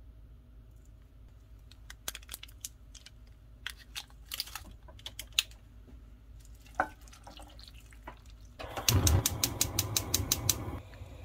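Small crinkles and clicks of a foil-wrapped bouillon cube being unwrapped and dropped into a clay pot. Near the end, a gas stove's igniter ticks rapidly with a rush of gas for about two seconds until the burner lights.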